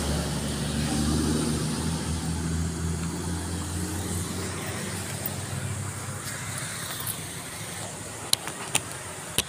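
A vehicle engine running with a steady low hum that fades away over several seconds. Near the end come a few sharp clicks of the phone being handled.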